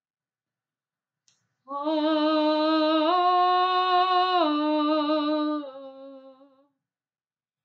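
A woman's voice singing a wordless, improvised held tone. It starts about two seconds in, steps up in pitch a second later, drops back after about a second and a half, settles a little lower and fades out.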